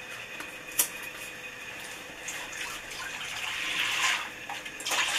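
Milk pouring from a carton into a large stainless steel pot, a splashing stream that builds from about two seconds in and grows louder. A single sharp click comes about a second in.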